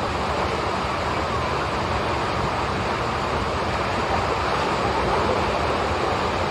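Water rushing and splashing as waves of pool water surge over a low pool edge, a steady rush with no break, a little louder about five seconds in.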